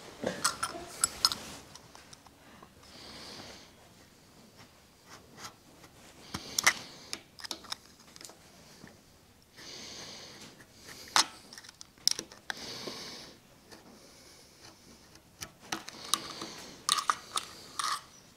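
Utility knife cutting a strip of Turcite B way-liner material on a metal surface: scattered sharp clicks and short scraping sounds of the blade working through the plastic.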